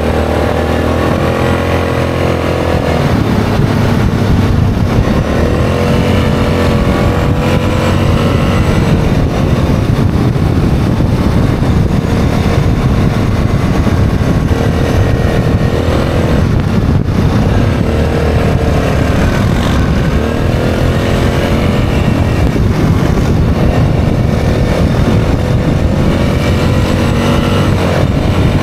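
ATV engine running under way, its pitch rising and falling every few seconds with the throttle, over a steady rush of tyre and wind noise on a gravel road.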